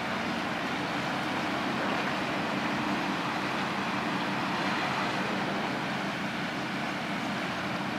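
Steady drone of a small tugboat's diesel engine under way, a low hum that stays even throughout, beneath a continuous broad hiss of rushing water or distant traffic.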